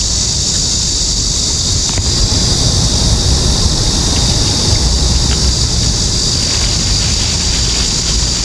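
Wind rumbling on the microphone over a steady high hiss, with a few faint rustles of plastic bags.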